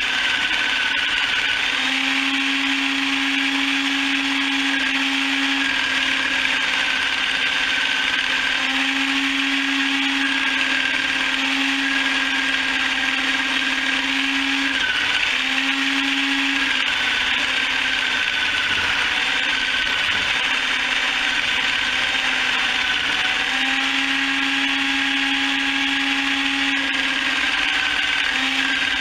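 Motorized chicken plucker running steadily: a continuous electric-motor hum with whirring noise, its pitch dipping slightly now and then as the load changes.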